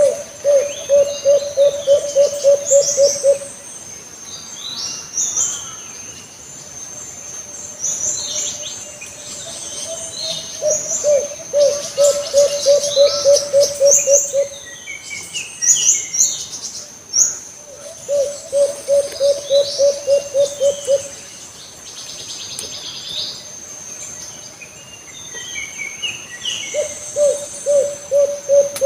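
An alimukon dove calling: bouts of rapid low coos, about four a second and each bout about three seconds long, repeated four times, the last starting near the end. Under it runs a steady high insect buzz, with chirps of other birds between the bouts.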